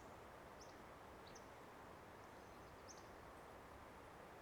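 A few faint, short, high chirps from a small songbird, spread out across a few seconds, over a steady quiet background hiss.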